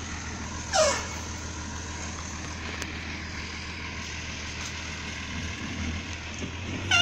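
Logging truck's engine running steadily at low speed on a rough dirt forest road, a low even hum. A short, loud, falling whistle-like sweep sounds about a second in.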